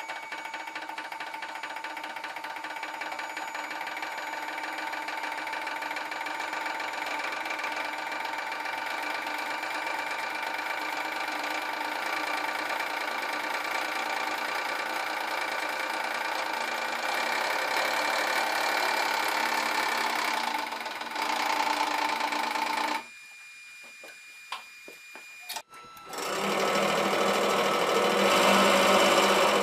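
Hydraulic press pump running with a steady, rapid mechanical buzz and whine while the ram crushes a carbon-fibre tube, growing slowly louder. It cuts off suddenly about 23 seconds in, and after a short pause with a few clicks it starts again, louder, as the ram lifts away.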